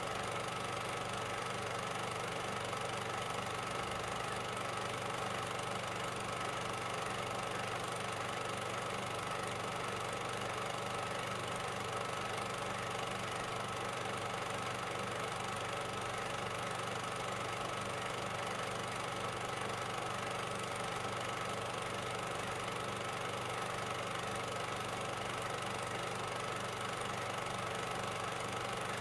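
A steady, unchanging mechanical drone like an idling engine, holding one even level and pitch throughout.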